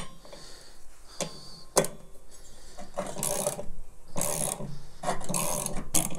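Socket ratchet clicking as it turns the bolt of a makeshift pulley puller, working a pulley off a lawn-mower deck spindle: a single sharp click about two seconds in, then several ratcheting strokes in the second half.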